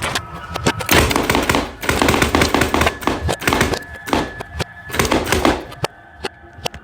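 A rapid string of sharp bangs and crackles in dense bursts, thinning out near the end.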